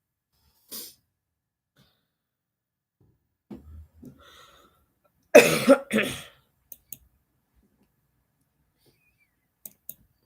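A person coughing, a short run of about three coughs halfway through, followed by a few faint clicks.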